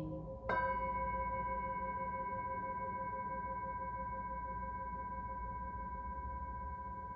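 Brass singing bowl struck once about half a second in, then ringing on in a steady chord of high tones that slowly fades. Under it a lower tone from an earlier strike keeps pulsing.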